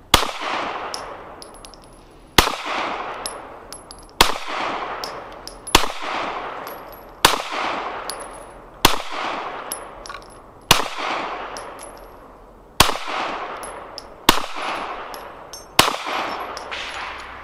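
Ten slow, deliberate shots from a 9mm Glock 19 pistol, spaced about one and a half to two seconds apart, each report trailing off in a long echo. Light metallic ticks are heard between the shots.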